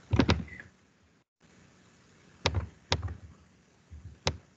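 Computer mouse clicking: a quick double click just after the start, two single clicks about half a second apart midway, and one more near the end.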